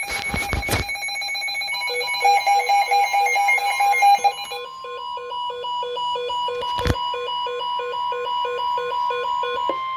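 Weather radio alerting: a short harsh burst, then rhythmic electronic alarm beeping for about four seconds, then the steady 1050 Hz NOAA Weather Radio warning alarm tone that announces a new warning. A single sharp click about seven seconds in.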